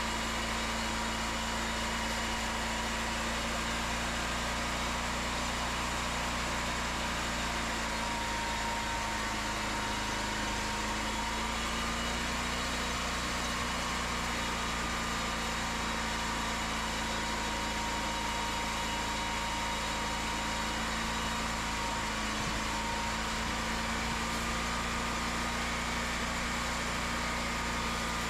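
Cooks 3238 hydraulic sawmill running steadily, a continuous machine hum with a couple of slight dips in pitch.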